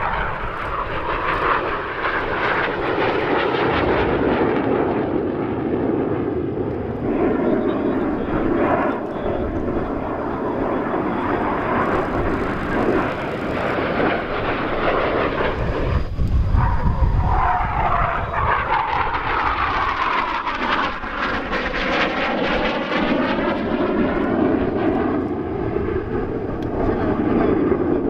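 BAE Hawk Mk.51A jet trainer's Rolls-Royce Turbomeca Adour turbofan running hard on a display pass, a continuous jet noise. The deep rumble swells about halfway through, then the sound takes on a sweeping, phasing whoosh that rises and falls in pitch as the jet goes by.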